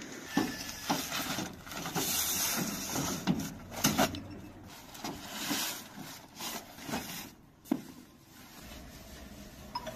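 Heavy cement sacks being shifted and dropped onto a pickup truck's bed: rustling and scraping, broken by irregular sharp knocks and thuds.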